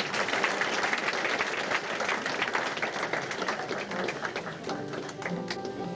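A small audience applauding, a dense patter of hand claps. About five seconds in, the instrumental accompaniment starts to play as the clapping dies down.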